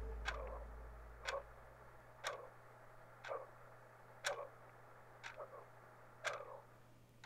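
A clock ticking about once a second, with a low drone fading out under the first few ticks.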